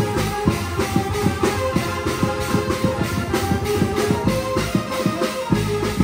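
Music: a fast, steady percussion beat of about four strikes a second under sustained melodic notes.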